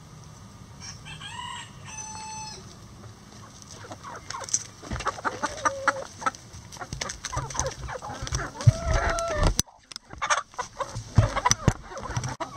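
A flock of backyard hens clucking and squawking close by, with pitched calls early on. From about four seconds in, many sharp taps and knocks join in and become the loudest sounds, broken by a sudden brief drop-out about ten seconds in.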